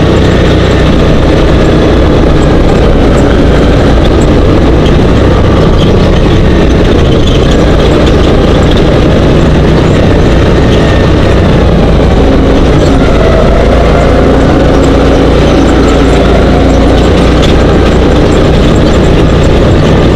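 Dune buggy engine running steadily under way over sand, heard from on board, loud and close to clipping, with slight changes in engine pitch.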